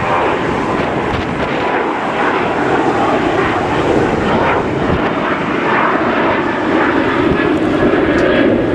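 Airliner flying over, its engines making a loud, steady noise.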